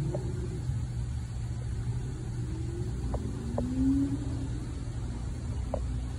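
Steady low rumble, with a brief louder hum about four seconds in and a few faint ticks.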